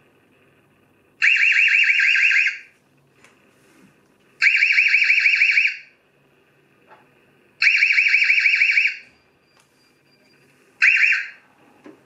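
Tamper alarm of an EZVIZ DB2 Pro video doorbell, set off by taking the doorbell off its bracket. A loud, high, rapidly warbling siren comes in bursts of about a second and a half, repeating about every three seconds, and the fourth burst is cut short.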